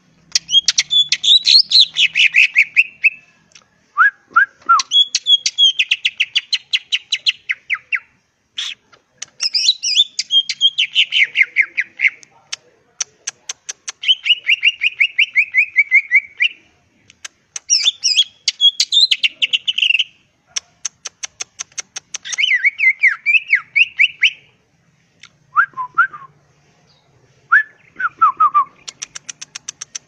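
Caged male cucak ijo (green leafbird) singing loudly in phrases of rapid warbled notes a few seconds long. Between them come quick runs of clicks and a few short, lower slurred notes.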